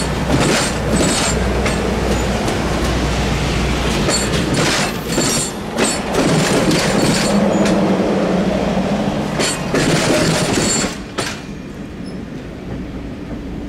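A train passing close by: a loud rumble with an uneven series of sharp clacks as the wheels cross rail joints. The sound falls away about eleven seconds in as the train clears.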